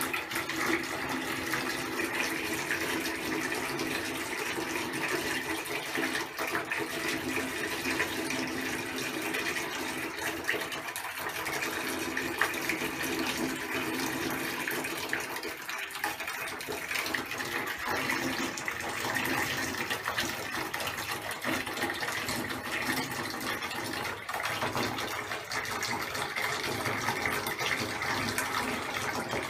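Hot water running steadily into a bathtub as it fills.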